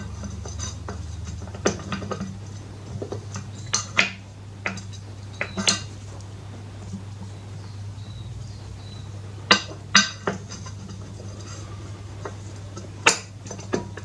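Metal brake pad being worked into a Harley Sportster's rear brake caliper: scattered sharp metallic clicks and clinks, a few louder knocks among them.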